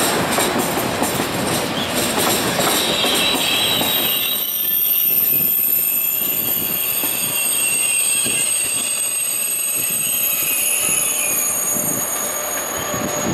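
Train rolling past on the rails, with a steady high-pitched metallic squeal setting in about four seconds in and holding until near the end.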